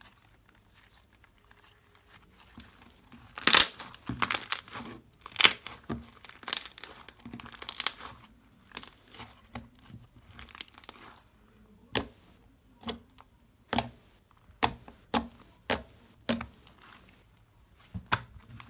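Hand-played pink shampoo slime that has not yet cleared, being stretched, folded and squished: quiet for the first few seconds, then a run of crackles and pops, then single sharp pops about once a second.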